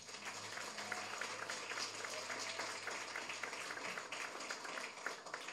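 Audience applauding: a dense patter of many hands clapping, tapering off near the end.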